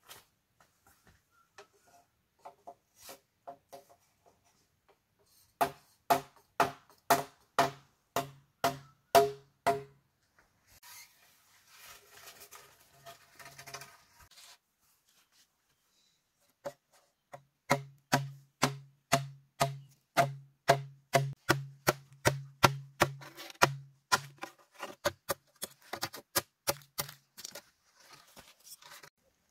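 Bamboo being struck in a steady run of blows, about two a second, each with a short hollow ring. A few seconds of rasping scraping come in the middle, then a second, longer run of blows.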